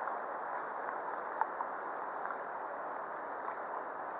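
Steady rush of a shallow river flowing over stones, with a few faint clicks.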